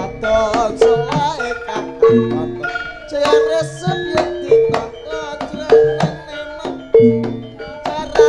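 Jaranan Senterewe ensemble music played through a sound system: drums and struck metal percussion keep a beat with a loud stroke about every 1.2 seconds, under a melody line that bends in pitch.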